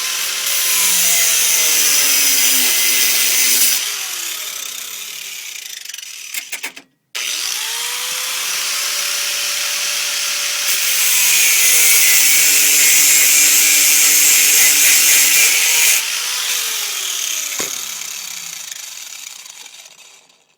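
Drill Master 4½-inch angle grinder run twice. Each time the motor spins up with a rising whine, cuts into steel chain with a loud, harsh high hiss, then is let off and winds down with a falling whine. The second start comes about seven seconds in.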